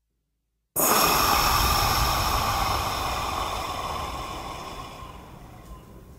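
Electronic music made from a processed breath: a loud breathy hiss that starts suddenly about a second in, with a faint ringing tone in it, and slowly fades away.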